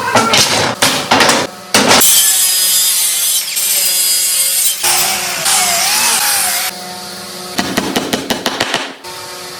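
Wood being sawn: a few quick strokes, then several seconds of steady, dense cutting noise, then a fast run of strokes near the end.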